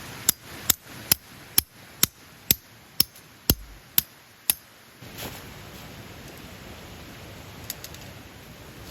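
A run of ten sharp knocks, evenly spaced at a little over two a second, that stops about four and a half seconds in.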